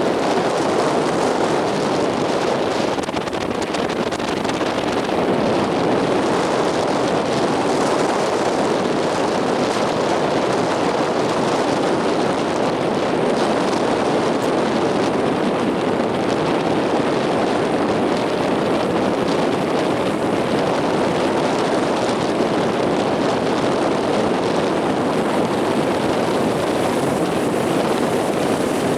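Strong onshore wind blowing over the microphone with rough sea: a loud, steady rushing noise that does not let up.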